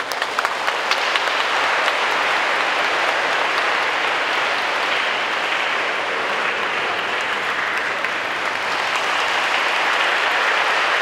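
Congregation applauding: a few scattered claps at first that fill in within about a second to steady, sustained clapping.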